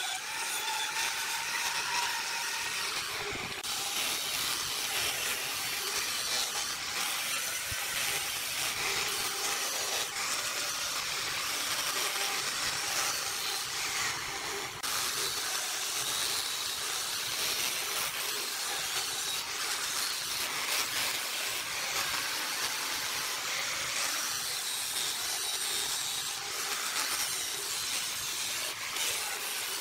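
Electric angle grinder grinding and sanding the wooden foot of a vase: a steady, noisy hiss of abrasive against wood.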